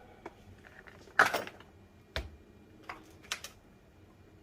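A few sharp clicks and knocks from parts and tools being handled on a player-piano mechanism. The loudest comes about a second in, with a short rattle after it, and lighter taps follow at uneven intervals.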